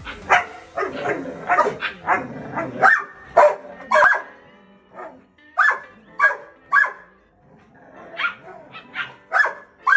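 Belgian Malinois dogs barking as a puppy faces up to adult dogs: short, sharp barks in quick runs, with a lull of about a second near the middle.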